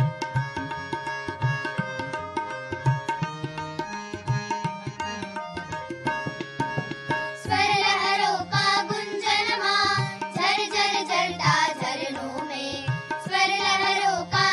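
Song accompaniment with a regular drum beat and held instrumental notes, then a group of children starts singing together in unison about seven and a half seconds in.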